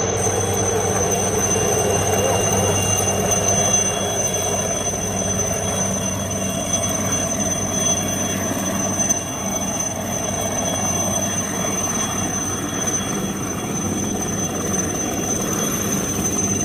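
Fast-flowing flood river rushing steadily, a constant loud wash of water noise.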